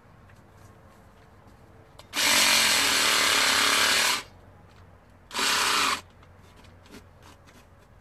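Small battery-powered carving tool cutting through pumpkin in two runs, one of about two seconds and then a shorter one of under a second. Its motor pitch wavers as the blade loads.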